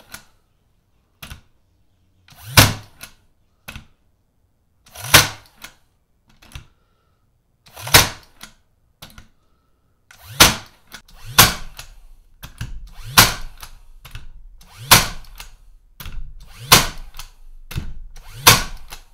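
Craftsman V20 18-gauge cordless brad nailer driving 2-inch brads into wood: about nine sharp shots, one every two seconds or so, with fainter clicks between the first few. It fires single shots, not in rapid succession.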